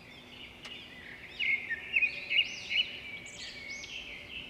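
Birds chirping and calling, a run of sharp chirps from about a second and a half in, then arching rising-and-falling calls.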